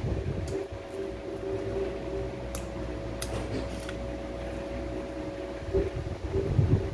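Mouth and hand sounds of a man chewing and pulling apart dried red dates (jujubes), with a few small clicks and louder low bumps near the end, over a steady mechanical hum in a small room.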